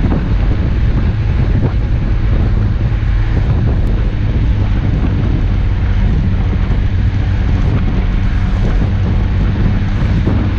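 An off-road 4x4's engine running steadily as it drives along a snowy road. Heavy wind noise on the microphone runs over it.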